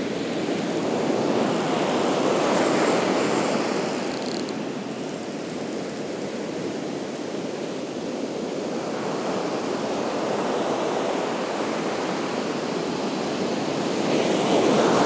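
Ocean surf breaking and washing up the beach, swelling and fading in slow surges, loudest about two to three seconds in and again near the end.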